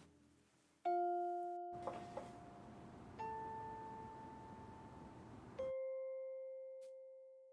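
Three bell-like chime notes, each higher than the last, struck about two and a half seconds apart and each left to ring out and fade.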